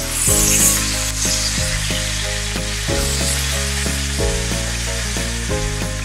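New York strip steaks sizzling as their edges are seared in a hot cast-iron skillet with onions, the sizzle flaring up briefly about half a second in. Background music plays underneath.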